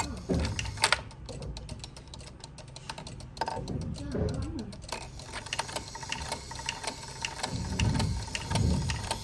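Clicking and ticking from the mechanism of an old Regula cuckoo clock, with sharp clicks coming at uneven spacing rather than a steady beat.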